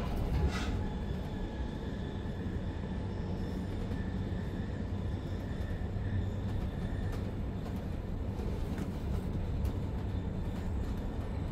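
Steady running noise of a Zürich S-Bahn double-deck DPZ train heard from inside the passenger coach: a low rumble of wheels on rail with faint whining tones above it. There is a brief knock about half a second in and a few lighter clicks later.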